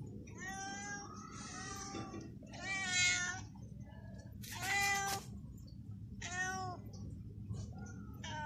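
A long-haired colourpoint cat meowing repeatedly, about five drawn-out meows, the loudest about five seconds in, followed by a few short faint ones.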